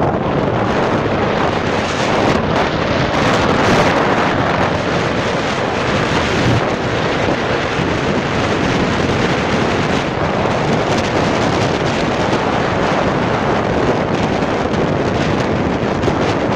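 Steady rush of wind on the microphone of a motorbike rider moving at road speed, with no clear engine note standing out.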